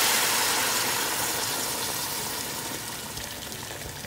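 Water poured from a jug into a hot pot of seared beef shanks, hissing and sizzling as it hits the hot meat and pot bottom; the hiss is loudest at first and fades steadily as the pot fills.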